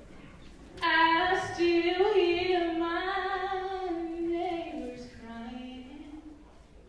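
A solo female voice singing slow, long held notes without accompaniment, starting about a second in and stepping down in pitch toward the end before fading out.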